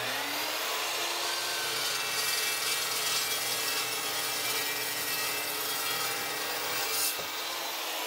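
Metal-cutting chop saw running and slicing through a heavy copper cable lug crimped on 500 MCM cable: a steady motor hum under the blade's grinding cutting noise, changing briefly about seven seconds in as the blade finishes the cut.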